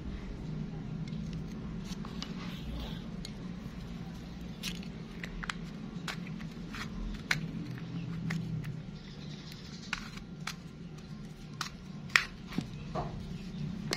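Small hard plastic parts clicking and tapping as a salvaged vibration motor and a black plastic housing are handled and pushed together: about ten separate sharp clicks, the loudest near the end. A steady low hum runs underneath.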